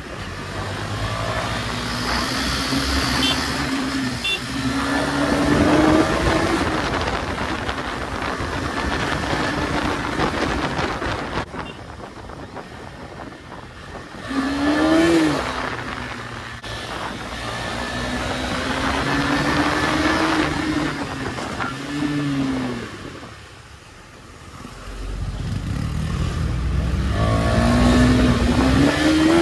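KTM 250 Duke single-cylinder engine being ridden hard, its revs climbing and dropping back again and again through gear changes and throttle, over a constant rush of wind noise. About three-quarters of the way through it eases off briefly, then pulls hard again.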